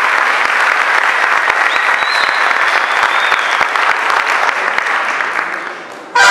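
Theatre audience applauding, the clapping thinning out over the last second, then music starting abruptly just before the end.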